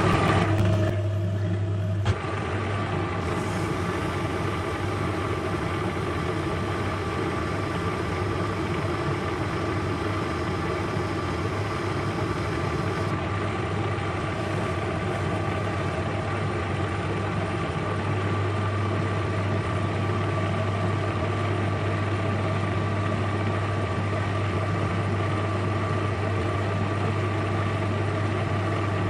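Small hobby metal lathe running steadily with a strong motor hum, turning a thin rod held on a live centre. The sound eases briefly about a second in and then holds steady.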